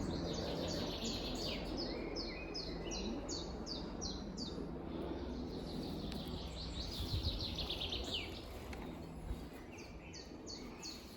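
Songbird singing: phrases of short, high, falling notes, about three a second, each phrase lasting several seconds with short gaps between, over a steady low drone.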